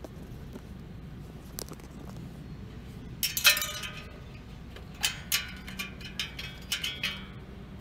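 Metal wrench clinking and clicking against steel bolt heads and the generator's sheet-metal frame while the muffler bolts are snugged tight. A loud clink comes about three and a half seconds in, then an uneven run of clicks.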